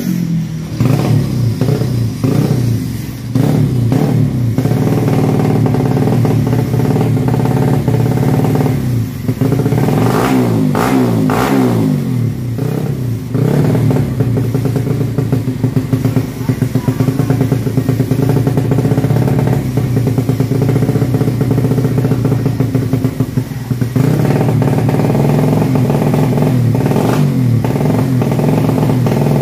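Race-tuned underbone motorcycle engine running at a steady idle, blipped several times about a third of the way in so the pitch rises and falls, then settling back to idle.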